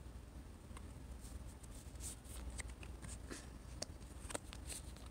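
Faint, scattered light clicks and rustles of fingers handling small paper stickers close to the microphone, over a low steady hum.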